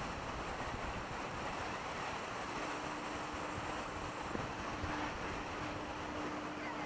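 Steady rushing noise of wind on the microphone of a camera riding a chairlift. A steady low hum joins about two and a half seconds in.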